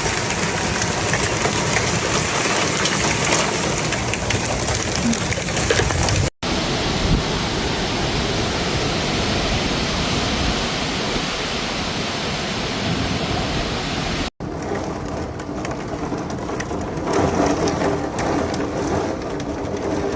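Heavy rain pouring down in a severe thunderstorm, a dense steady hiss, across three separate clips that cut off abruptly about a third and two-thirds of the way through.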